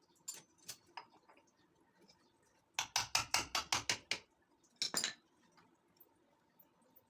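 A quick run of about eight light clinks, about six a second, with a few single clicks before it and two more about a second after.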